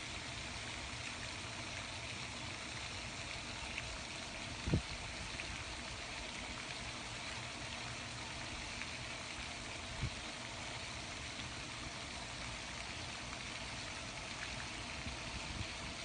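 Steady outdoor background noise at a pond, with a couple of brief low thumps, the clearest about five seconds in; no geese calls stand out.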